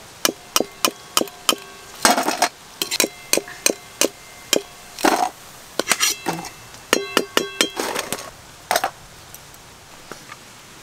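Stainless-steel plates and metal utensils clinking and tapping as fried pakoras are dished out. It is a quick run of sharp metallic clicks, each with a short ring, thick through the first half and again around seven seconds in, then thinning out near the end.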